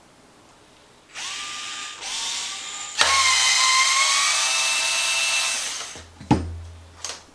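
Hyper Tough 4-volt cordless screwdriver running with a steady whine, backing out the screws that hold the tie rod and A-arm pins on an RC truck's steering knuckle. It runs in two short bursts, then one longer run of about three seconds. Two sharp knocks come near the end.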